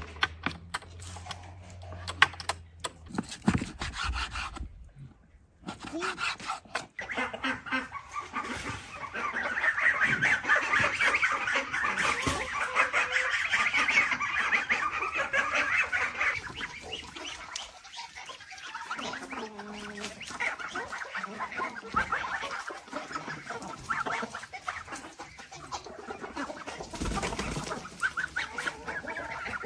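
A flock of farmyard poultry calling, busiest and loudest about a third of the way in.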